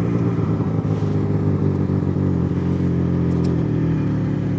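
Yamaha XJ6 inline-four motorcycle engine running at fairly steady revs while riding, with a slight change in pitch about three and a half seconds in.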